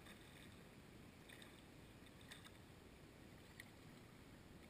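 Near silence: faint outdoor quiet with a few soft, short high-pitched ticks.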